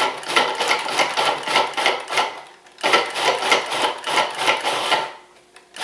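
A food processor, a machine dating from 1982, pulsed twice, its spinning blade chopping quartered red onion and cilantro with a loud, rough whir. The first pulse stops about two seconds in, and the second runs from about three to five seconds in.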